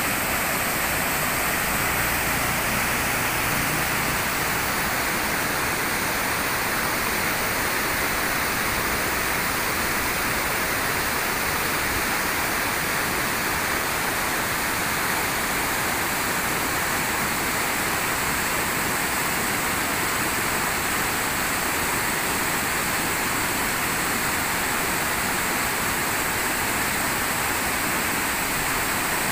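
Waterfall, its water rushing in a steady, unbroken hiss.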